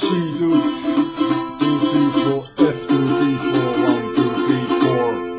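Mandolin strummed with a pick in a steady rhythm, with a short break about two and a half seconds in. The last chord is left ringing near the end.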